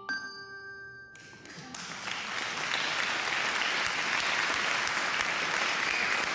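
A last bell-like chime rings out and fades at the start, then applause builds and continues steadily.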